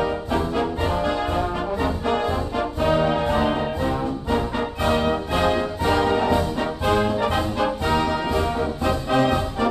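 Background music led by brass, with a steady beat.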